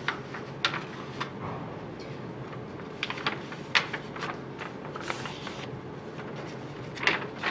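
Calligraphy brush writing on paper: a few short taps and a brief scratchy swish about five seconds in, over steady room noise.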